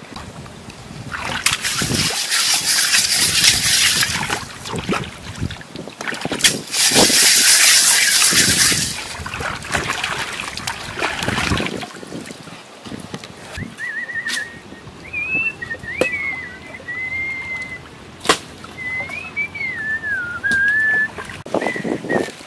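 Hands splashing and sloshing in shallow river water at a muddy bank, in two loud spells of splashing. Later, a thin wavering whistle rises and falls for several seconds, broken by a few sharp clicks.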